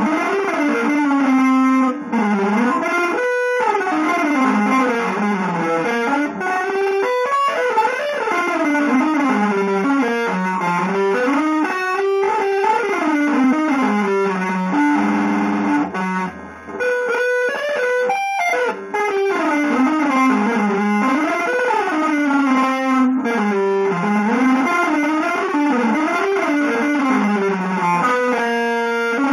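Electric guitar playing fast, winding single-note runs that climb and fall without pause, settling briefly on a few lower held notes about halfway through.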